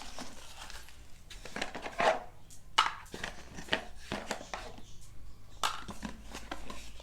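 Scattered light taps, clicks and rustles of a product box and its accessories being handled and set down.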